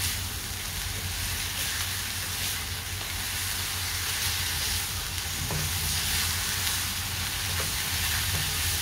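Grated apple sizzling in ghee in a nonstick kadai while a silicone spatula stirs and scrapes it: a steady frying hiss with a low hum underneath. The apple is being sautéed on a high flame to cook off its water.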